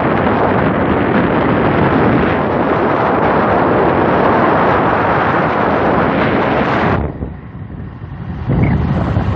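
Wind rushing over the microphone of a moving motorcycle, a loud, steady rush with the ride's road noise under it. It drops away abruptly about seven seconds in and comes back a second and a half later, heavier in the low end.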